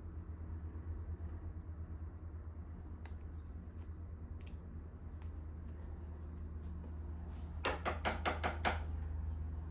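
Trading cards being handled: a few faint clicks, then a quick run of about six sharp flicks or taps near the end, over a steady low hum.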